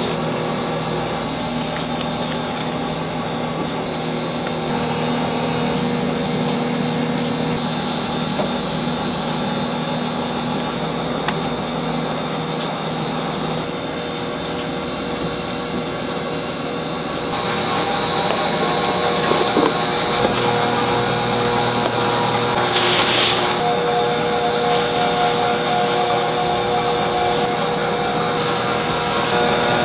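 Steady machine hum and whir with several held tones, growing louder about two-thirds of the way through, with one short hiss near the end.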